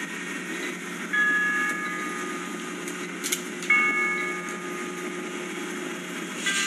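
Marching band brass holding loud sustained chords, with sharp accented entrances about a second in and again near four seconds over a steady lower drone, and a brief bright crash between them. The sound is thin, with no deep bass, as replayed through a computer and re-recorded.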